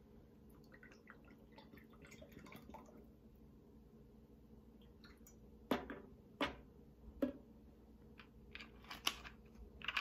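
Baby oil pouring from a plastic bottle into a glass jar, a faint trickle in the first few seconds. Then several sharp clicks and taps from the plastic bottle and its cap.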